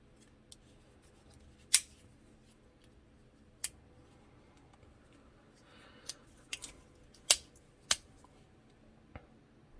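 Leatherman Juice S2 multitool's tools being swung open and snapped shut, giving a series of sharp metal clicks, four of them loud, with a brief scrape a little past the middle.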